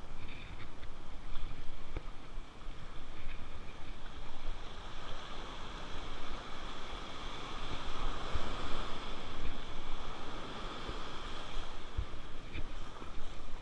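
Surf washing in and foaming around the shallows, with wind buffeting the microphone in uneven low gusts.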